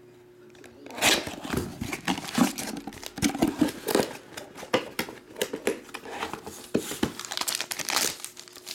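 Cardboard trading-card box being opened by hand: the seal tab torn, the inner box slid out, and the packaging handled, with dense rustling, scraping and short taps from about a second in.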